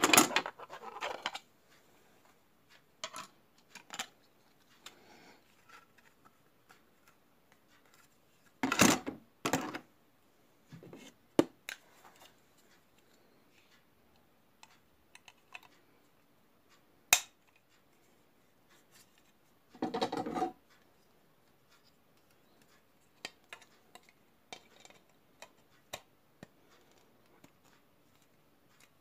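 Plastic parts of a model airliner being handled and fitted together by hand: scattered small clicks, scrapes and rubs, with a couple of louder knocks, one sharp click and a short rustling scrape along the way.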